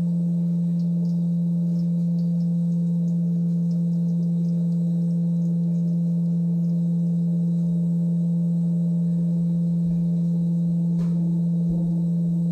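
Vevor electric cream separator running, its motor and spinning bowl giving a loud, steady hum on one constant pitch. A single light click near the end.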